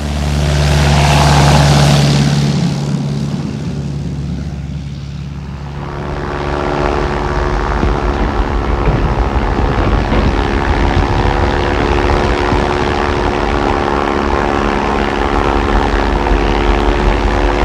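Twin-engine propeller plane taking off and passing close, the engine and propeller noise swelling and then fading over the first few seconds. Then the steady drone of the propeller engines heard from inside the cabin in flight.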